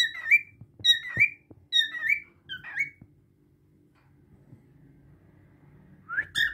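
Cockatiel whistling: four short upward-swooping notes less than a second apart, then a pause and one more whistle near the end.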